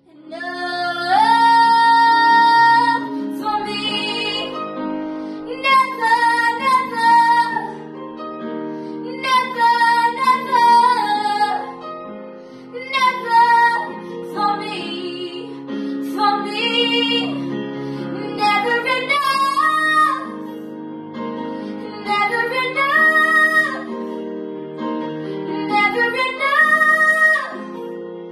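A teenage girl singing a slow pop ballad over an instrumental backing track, in phrases of a few seconds with long held notes.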